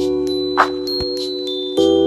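Background music: held synth chords with chime-like high notes over a steady electronic beat of kick drum and hi-hat, the chord changing near the end.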